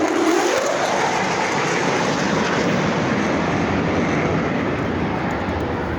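Air show airplane passing low overhead: a loud roar, its pitch rising over the first second, then a steady roar that eases slightly near the end.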